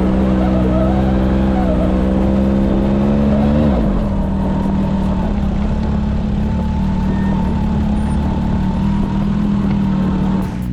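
Off-road vehicle engine running at steady revs. Its pitch drops about four seconds in, and it carries on as a rougher drone with a faint high whine.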